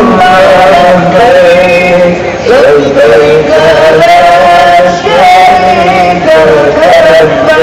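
Male voices singing an Islamic devotional chant in long, held melodic phrases, sliding between notes now and then.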